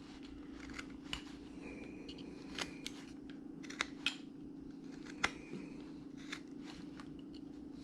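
Hand carving tool cutting into a wood carving: a series of short, irregular snicks and clicks as small chips are pared off, over a steady low hum.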